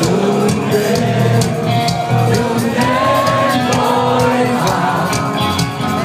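Rock band playing live through a big concert sound system, a voice singing over drums and guitars, heard from within a shouting crowd.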